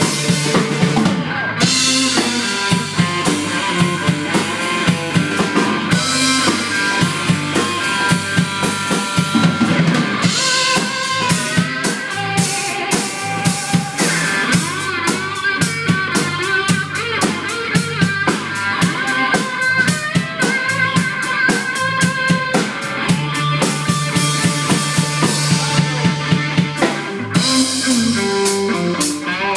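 Live band instrumental: an electric guitar plays a fast lead over a full drum kit, with quick snare and bass-drum hits and cymbal crashes in places.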